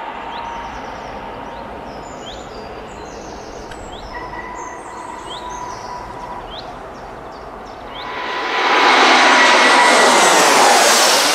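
Steady distant rumble with a thin held whine and short chirps repeated about once a second; about eight seconds in, a loud jet airliner roar swells up, its tone sliding downward as the aircraft passes close.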